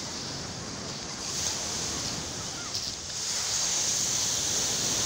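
Surf washing onto a sandy shore, mixed with wind on the microphone, as a steady rush that grows louder about three seconds in.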